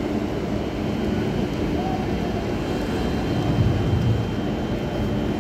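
Steady low rumble of quayside machinery, a ship's deck cranes and trucks running while bagged cargo is discharged, with a steady hum through it and a louder swell about three and a half seconds in.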